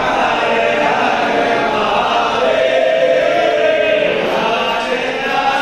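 Group of voices chanting a Hindu devotional hymn in unison, continuous and steady.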